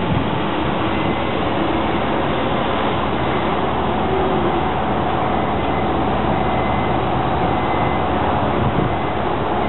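Semi-truck car carrier's diesel engine running steadily as the rig drives slowly past and away.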